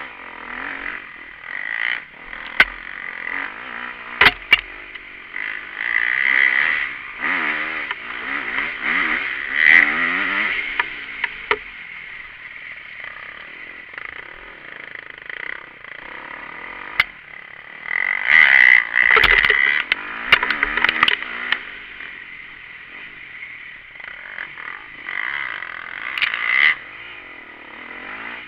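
Motocross dirt bike engine heard on board, revving up and easing off in repeated swells as it rides a rough dirt track, with several sharp knocks and clatter from the bumps.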